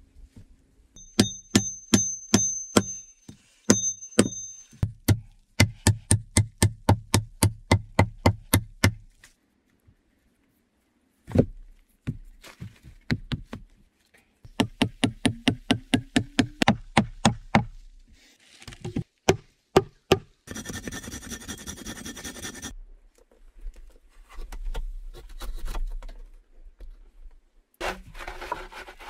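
Hammering on log timber: several runs of sharp blows, about two to three a second, with pauses between. About two-thirds of the way through there is a couple of seconds of hissing noise.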